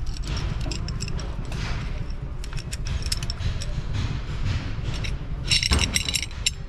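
Metal tools and wheel parts clinking and scraping during truck wheel-hub work, a string of sharp knocks and chinks over a steady low rumble. About five and a half seconds in comes a louder burst of ringing metal clatter.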